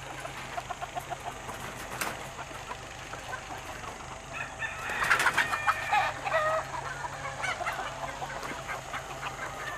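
Chickens clucking, with a rooster crowing about five seconds in, the loudest call. A steady low hum, like an idling vehicle, runs underneath.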